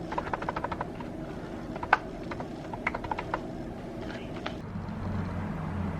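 A quick run of light clicks, about ten a second for under a second, then a louder single click and a few scattered clicks, over a steady low rumble.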